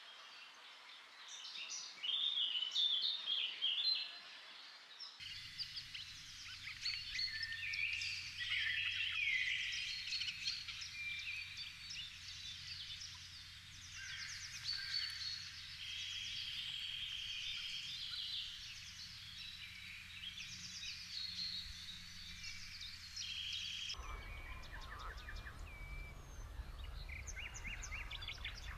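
Wild songbirds singing in a busy chorus of overlapping chirps, trills and short whistled phrases, over a low steady hum that sets in about five seconds in. The background changes abruptly about five seconds in and again near the end.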